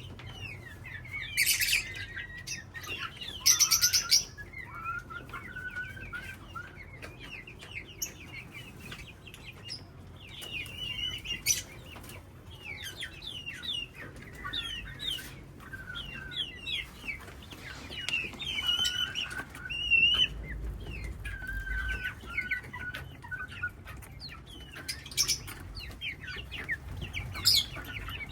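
A colony of parrots chirping and calling continuously, with several loud, harsh squawks about two and four seconds in and again near the end.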